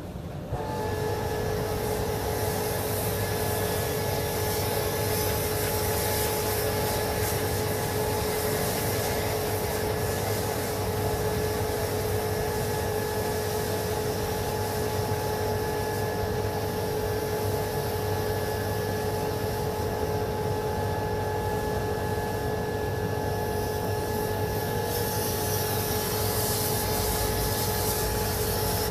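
A machine running steadily with a constant whine and a low hum, starting about half a second in and holding unchanged.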